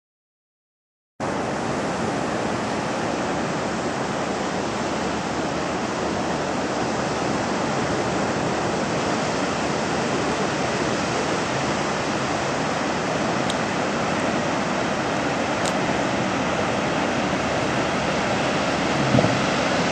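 Steady rushing noise of surf breaking on the beach, cutting in abruptly about a second in, with a brief thump near the end.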